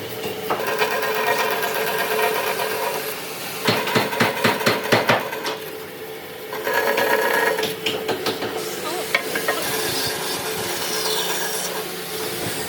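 A tool scraping and rubbing on wood over a steady hum, with a quick run of about eight sharp knocks about four to five seconds in.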